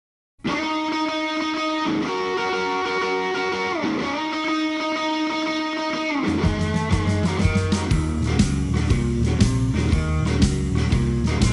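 Blues-rock music: an electric guitar plays alone, holding chords that slide between pitches, then about six seconds in bass and drums join with a steady rhythmic groove.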